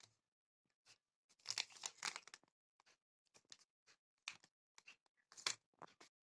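Intermittent handling noises: short crinkling and rustling, with a denser patch of rustling about one and a half to two and a half seconds in and a few sharp clicks later.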